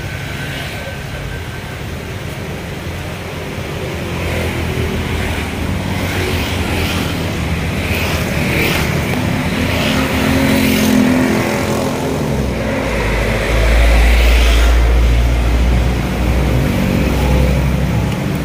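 Road traffic: motor vehicles driving past, with a low rumble that builds and is loudest about two-thirds of the way through as a vehicle goes by.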